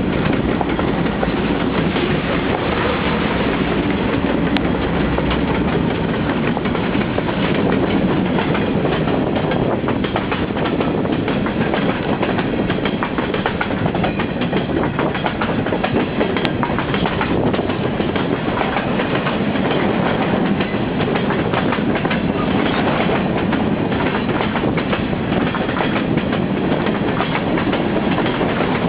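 CN freight train rolling past at close range, its wheels clattering steadily over the rail joints.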